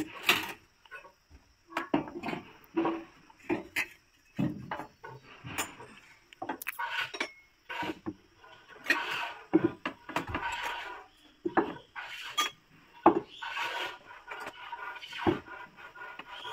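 Glass cups and metal and glass serving trays being set down and slid into place on wooden boards: a run of irregular clinks, knocks and scrapes.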